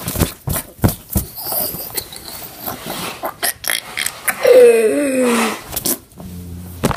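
Rustling and knocking from a camera being handled over plush toys and couch cushions. About four and a half seconds in, a voice gives a drawn-out animal-like call lasting about a second and falling in pitch.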